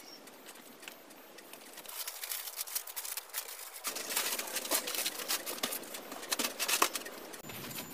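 Thin plastic sheeting rustling and crinkling as hands handle and smooth it flat over a plastic ground sheet: faint at first, then many small crackles from about two seconds in.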